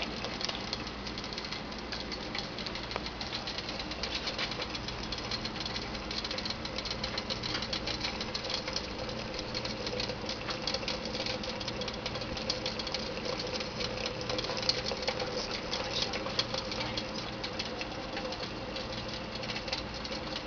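Water boiling rapidly inside an aluminum soda can, giving a dense run of fine clicking and crackling.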